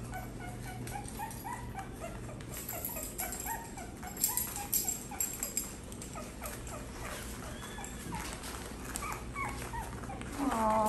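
A litter of very young puppies squeaking and whimpering, a steady string of short, high cries. Brief rattles about four to five seconds in, and a louder, lower cry near the end.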